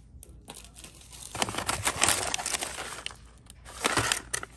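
Kraft paper bag crinkling and rustling as a hand pulls it out of a cardboard box. The rustling is loudest from about a second and a half in to three seconds, with another short burst near the end.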